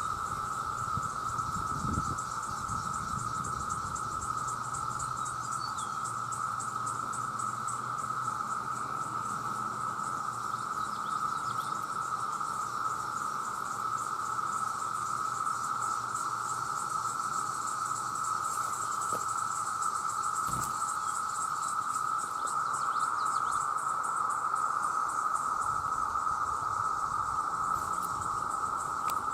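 Chorus of many cicadas: a steady, unbroken drone with a faster, higher pulsing buzz over it, growing slightly louder about two-thirds of the way in.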